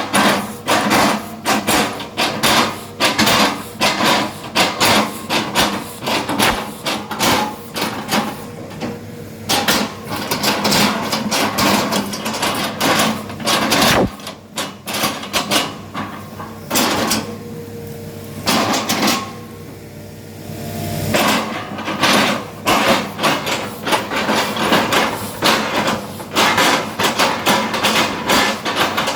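Excavator working oil palm trunks: rapid repeated knocks and cracks of wood, several a second, over the steady hum of its diesel engine. About two-thirds of the way through, the knocking stops for a couple of seconds, leaving the engine alone.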